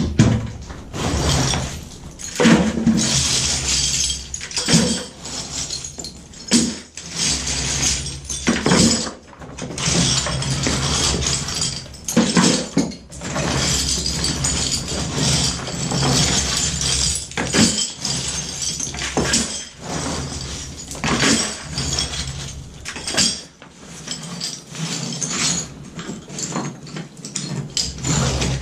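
Broken ceramic tile and concrete chunks clattering and scraping as they are gathered by hand off the floor and dropped into a plastic bucket, in irregular bursts of clinks and knocks.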